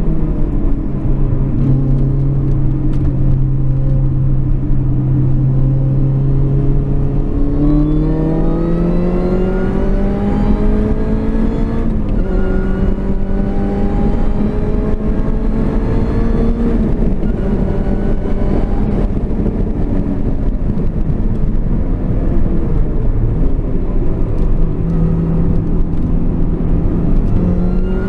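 An R53 Mini Cooper S's supercharged 1.6-litre four-cylinder engine, heard from inside the cabin while it is driven hard on track. The revs hold steady at first, then climb, drop suddenly at an upshift about twelve seconds in, and climb again before falling away; they pick up once more near the end.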